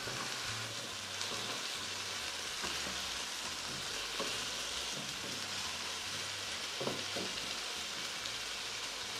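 Cut potatoes sizzling steadily as they fry uncovered in a pan in the oil and fat left from browning chicken, with a few faint light clicks.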